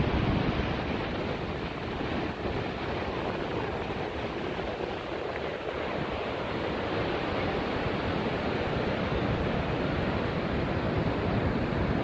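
Surf washing onto the beach in a steady rush of noise, with wind buffeting the phone's microphone as a low, fluttering rumble.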